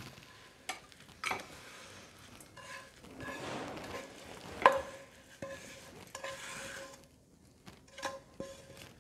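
Wooden spatula scraping a sticky sesame, jaggery and peanut mixture out of a non-stick frying pan into a ceramic bowl: scattered scrapes and light knocks against pan and bowl, the sharpest knock about halfway through.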